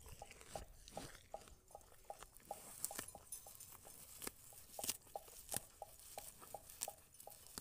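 Cow grazing close up, tearing and cropping grass with sharp, crunchy rips, several of them about a second apart. Under it runs a steady train of short, faint chirps, about three a second.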